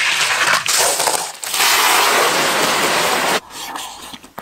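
River pebbles being heated in hot oil in a wok and scooped with a wire strainer: the stones clatter against each other and the pan over a dense sizzle. The sound comes in three loud stretches, then drops to a quieter level about three and a half seconds in.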